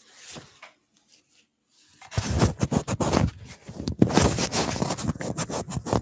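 Loud scraping, rubbing and knocking of a hand handling the device right at its built-in microphone, starting about two seconds in as the webcam is covered.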